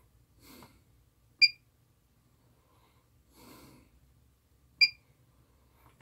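Two short electronic key beeps from bench test gear as its buttons are pressed, about a second and a half in and again near the end, with soft breathing in between.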